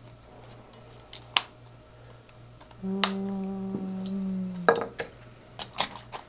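Plastic parts of a Dye Rotor R2 paintball hopper clicking and clattering as the loader is put back together, with sharp clicks about a second in, near the middle and several toward the end. A steady low hum lasts about two seconds in the middle and stops at a click.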